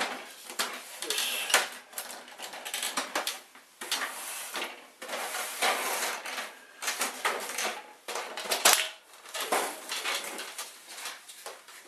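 Plastic casing of an Epson inkjet printer being handled and shifted on a worktop: irregular clicks, knocks and rattles with scraping in between.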